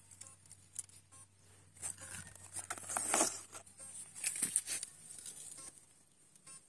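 Irregular rustling and crackling with scattered clicks, loudest about three seconds in and again about four and a half seconds in.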